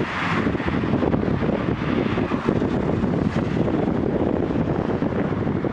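Wind buffeting the microphone over the steady running of a Volvo EW140D wheeled excavator's diesel engine as it lifts a load.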